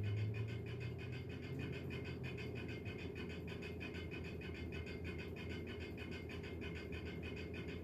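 Steady machine hum with a fast, even pulsing, unchanging throughout.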